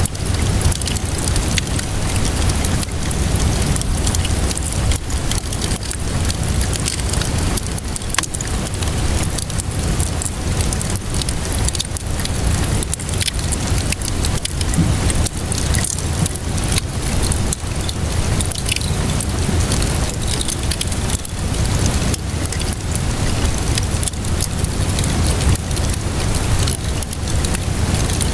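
Wood fire crackling with frequent small sharp pops over steady rainfall, with a steady low rumble underneath.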